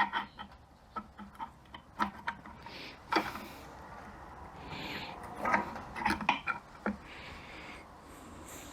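Metal transmission clutch plates and steels clinking and clicking as they are handled, with a few brief scraping sounds.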